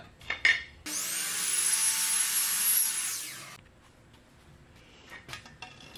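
Electric miter saw running up with a quick rising whine and cutting through a piece of camper edge trim for about three seconds, then dying away. A few light handling clicks come just before it.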